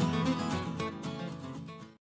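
Background music with strummed acoustic guitar in a country style, fading out near the end.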